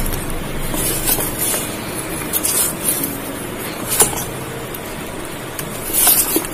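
Steel spoon stirring thick semolina idli batter in a metal bowl: a soft, wet stirring noise with a few sharp knocks or scrapes of the spoon against the bowl, one about four seconds in and a short cluster near the end.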